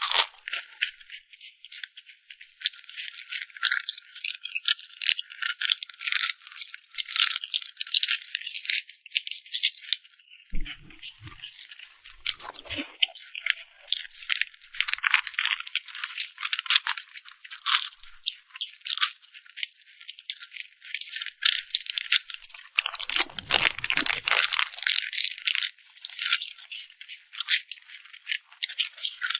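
Close-miked crunching of crispy fried silkworm pupae being chewed: a dense, continuous crackle of many sharp little cracks.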